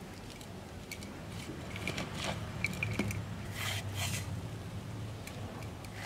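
Hands tossing and sprinkling powdered seasoning over strips of raw banana stem on a plate: soft, scattered rustles and squishes.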